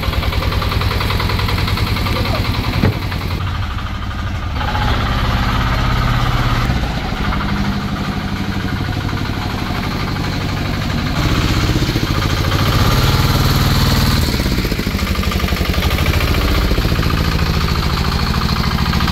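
Tata Ace mini truck's engine running, growing louder and shifting in pitch for a few seconds past the middle as the loaded truck pulls away.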